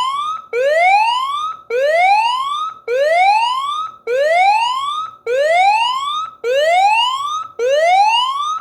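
A smartphone anti-theft app's motion alarm, set off by the phone being picked up, sounds from the phone. It is a siren-like whoop that rises in pitch, repeated about once a second.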